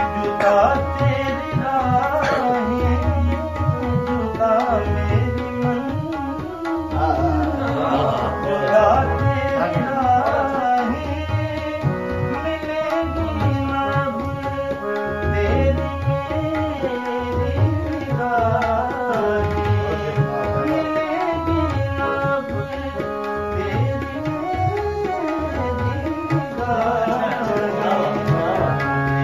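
A man singing a slow, ornamented melody to a harmonium, accompanied by tabla. The harmonium holds steady chords under the voice, and the tabla keeps a regular beat with deep bass strokes.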